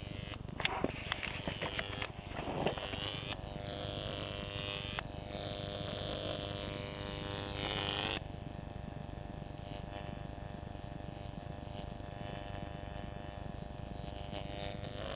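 High-voltage arc on a Jacob's ladder fed by a neon sign transformer, buzzing steadily at mains pitch. Sharp crackles in the first few seconds, and a louder, harsher buzz from about three to eight seconds in.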